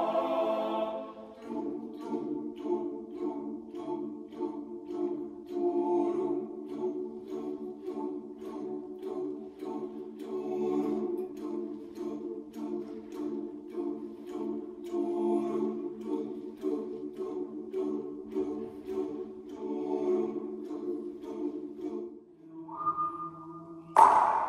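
Boys' choir singing a cappella, holding a sustained chord over a steady pulse of short clicks, about two to three a second. About two seconds before the end the chord stops, and a sharp, loud hit with a ringing tail comes near the end.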